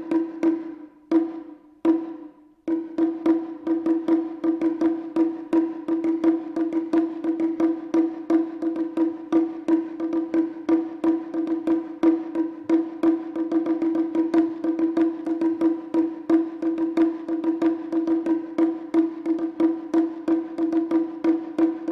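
Wadaiko (Japanese taiko) drumming: fast, dense strikes over a steady ringing tone, broken by a few short pauses in the first three seconds and then played without a break.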